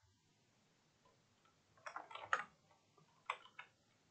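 Faint typing on a computer keyboard: a quick run of key clicks about two seconds in, then two more a little over a second later.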